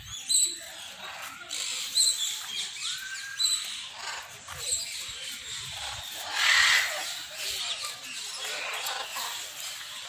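Parrots squawking in the aviaries: a few short high chirps, then one loud harsh screech about six and a half seconds in.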